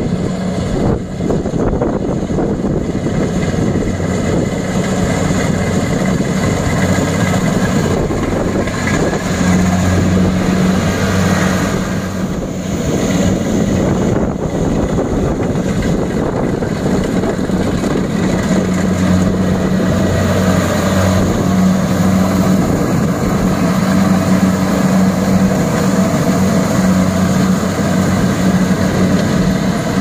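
Kubota DC-70 Plus combine harvesters running while cutting and threshing rice. The engines give a steady, loud drone with a low hum that swells at times, over the rushing noise of the cutting and threshing gear.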